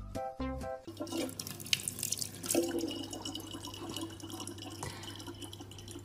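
A few notes of music, then a thin stream of tap water running into a plastic water bottle, with a steady low hum underneath.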